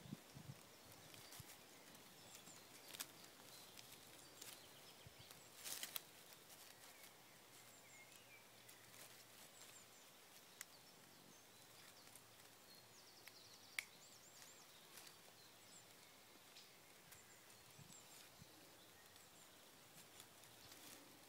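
Near silence: quiet woodland ambience with a few soft clicks and rustles and faint bird chirps.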